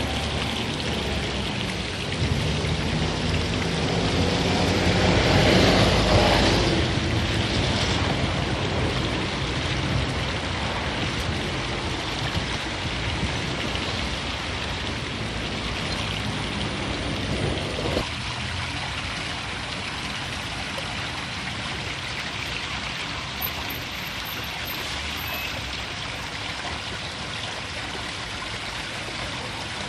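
Pond overflow water babbling and rushing down a roadside ditch, a steady splashing. From about two seconds in, a passing vehicle's engine grows louder and fades again by about seven seconds.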